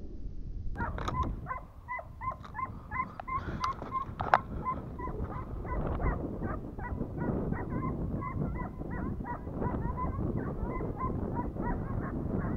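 A pack of hare-hunting scent hounds giving tongue on the trail, short high yelps about three a second without a break, over a steady low rumble.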